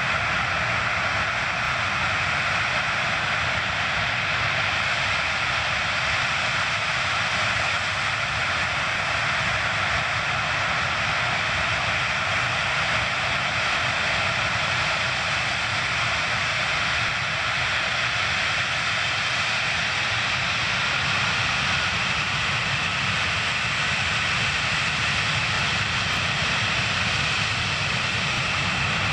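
Antonov An-124-100's four Lotarev D-18T turbofan engines running steadily while the freighter holds on the runway before its take-off run: an even jet hiss and whine that neither rises nor falls.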